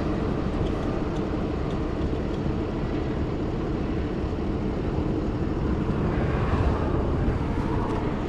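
Steady rush of interstate traffic going past on the highway, swelling slightly as a vehicle passes about two-thirds of the way through.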